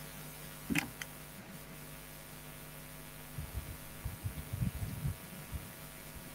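Steady low electrical hum, with a short sharp click about a second in and a spell of faint, muffled low thumps in the middle.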